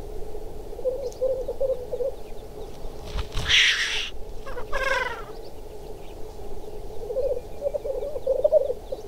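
Male black grouse at a lek: a steady chorus of low bubbling, cooing display song, with louder warbling phrases near the start and end. About three seconds in comes a loud hissing call, followed a second later by a short run of falling higher notes.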